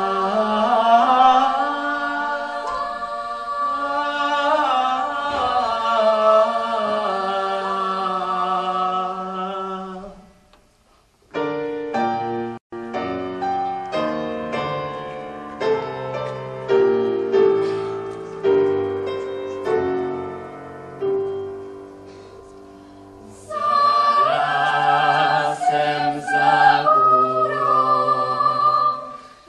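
Pop choir singing sustained chords, breaking off about ten seconds in. After a brief silence a grand piano plays a slow passage of single notes and chords, and near the end singing comes back in over the piano.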